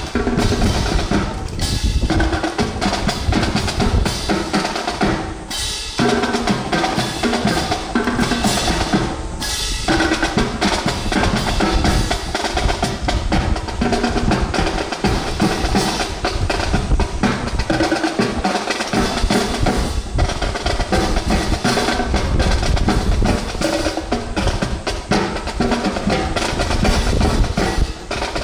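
Percussion-heavy music with snare and bass drums and drum rolls, continuous apart from two short breaks about five and nine seconds in.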